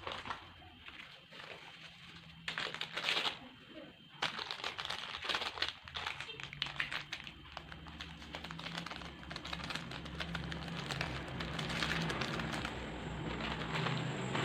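Plastic instant-noodle packaging crinkling and rustling as it is handled, in dense crackly spurts that become continuous after about four seconds.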